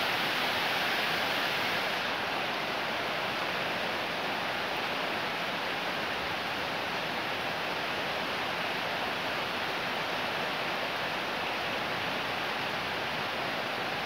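Fairly heavy rain pouring down in a steady, even hiss, softening slightly about two seconds in.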